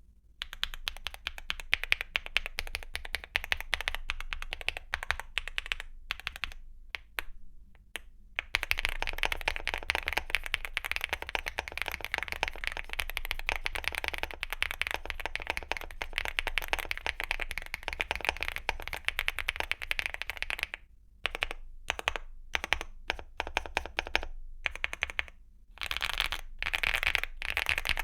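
Typing on a mechanical keyboard fitted with Gateron Smoothie Sea Salt linear switches and thick dye-sub PBT Cherry-profile keycaps: fast, steady runs of keystrokes, broken by short pauses.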